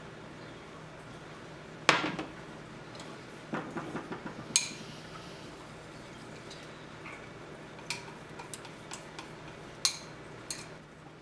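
Kitchenware clatter: a sharp metal clank about two seconds in, as of the square egg pan knocking on the glass cooktop, then scattered light clicks of chopsticks against a glass bowl of beaten eggs.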